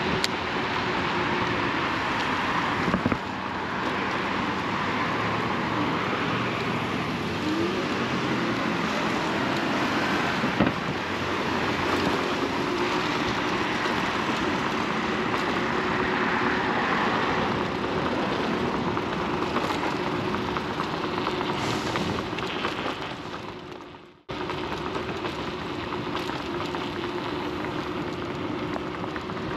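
Riding noise from an Inmotion RS electric scooter at speed: steady rushing wind and tyre hiss, with a faint steady hum under it and a couple of small knocks. The sound fades out briefly about three-quarters of the way through, then comes straight back.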